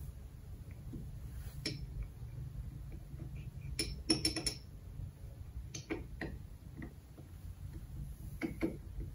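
Small metal parts of an outboard carburetor fuel pump clicking and clinking against each other and the workbench as the pump is reassembled: scattered light clicks, the loudest a quick cluster of taps about four seconds in, over a faint low hum.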